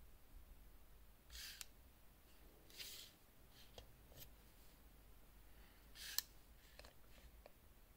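Faint handling noises as a digital caliper is slid and set against a steel watch case: a few short scrapes and rubs, with one sharp click about six seconds in.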